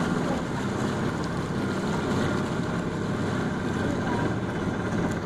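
Motorboat engine running steadily under way, mixed with the rush of water along the hull.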